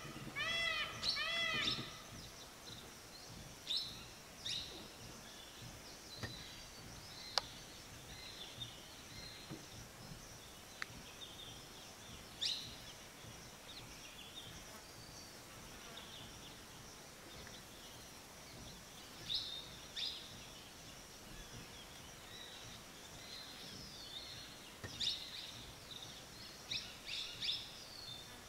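Faint forest birdsong: scattered short, high chirps and calls from several small birds over a low background hiss. In the first two seconds a bird gives a quick run of repeated rising-and-falling calls, about four a second, that then stops.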